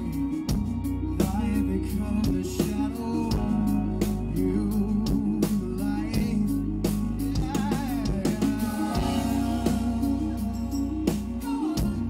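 Live rock band playing: electric guitar, bass and a steady drum-kit beat, with a male lead vocal singing over it.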